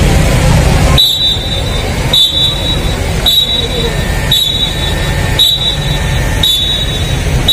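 A short high electronic beep repeating about once a second, over a steady low rumble.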